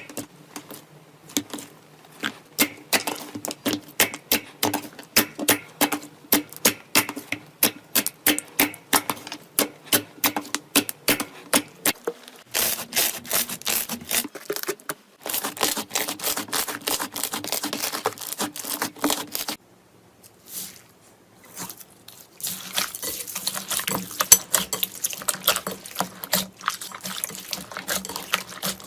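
Slime being handled, making a run of sharp clicking pops about three or four a second, then denser crackling. The crackling breaks off briefly about two-thirds of the way through before starting again.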